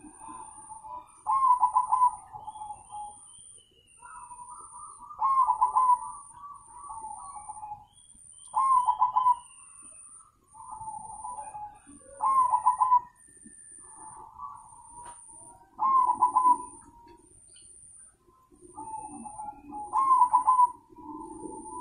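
A cross-bred zebra dove (perkutut) singing its cooing song over and over, six phrases each opening with a loud burst, about one every three and a half to four seconds.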